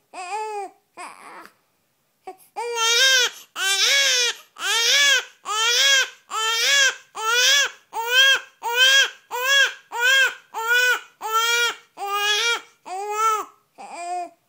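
Two-week-old newborn crying, unable to settle to sleep: a few cries, a short breathy break about two seconds in, then a long run of loud, evenly spaced cries, roughly one every three-quarters of a second.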